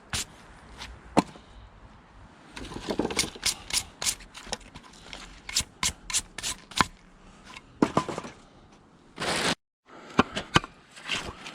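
Split firewood pieces clacking and knocking against each other, with some scraping, as logs are handled and stacked, in irregular sharp knocks; the sound cuts out briefly about nine and a half seconds in.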